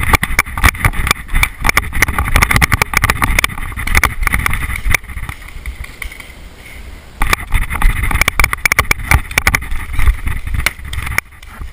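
Rapid irregular knocking and rattling from a body-worn camera and paintball gear jolting as the player runs. It comes in two spells, with a brief lull about five to seven seconds in.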